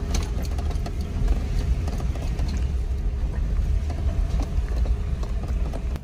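Jeep Wrangler on a rough dirt trail, heard from inside the cab: a steady low rumble of engine and tyres with frequent small knocks and rattles.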